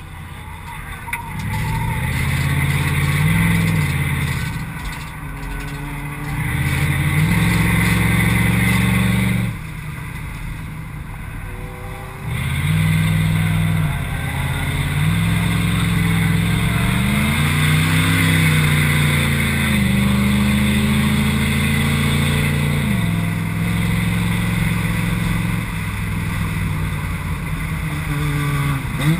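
Mercedes 560SEL V8 engine heard from inside the stripped-out cabin, pulling hard under throttle in several long surges whose pitch climbs and drops, with quieter lifts off the throttle in between, the longest about ten seconds in.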